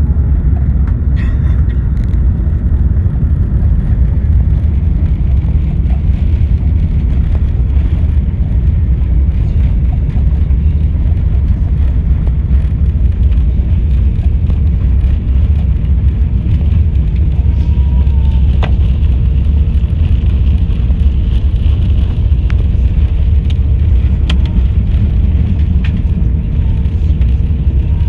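Loud, steady low rumble inside the passenger cabin of an Airbus A380 on the move, from the engines and airframe.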